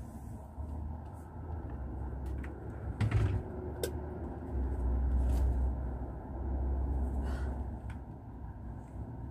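Low background rumble that swells and eases, with a dull knock about three seconds in and a few light clicks after it.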